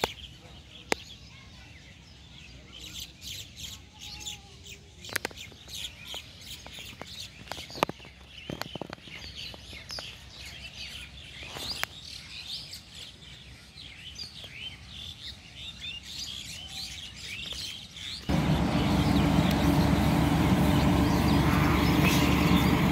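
Many small birds chirping and twittering, with a few sharp knocks. About three-quarters of the way through, it cuts suddenly to a much louder steady noise with a low hum.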